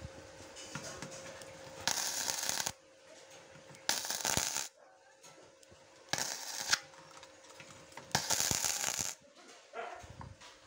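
ANDELI NBC-250 MIG welder's arc crackling on rusty steel bar in four short bursts of under a second each, with quiet pauses between them: short tack welds.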